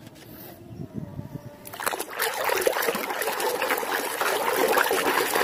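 Hands splashing and sloshing water in a plastic basin while scrubbing muddy plastic toy animals. It is soft at first, then becomes steady, louder splashing about two seconds in.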